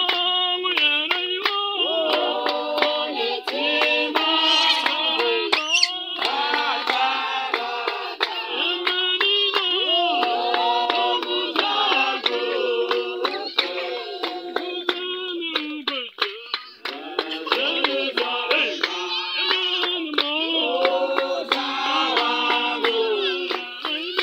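A congregation singing a Shona hymn together to steady hand-clapping. There is a short break in the singing about two-thirds of the way through.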